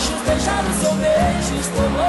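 Sertanejo music, an instrumental passage after the last sung line: a melody over bass and a steady beat.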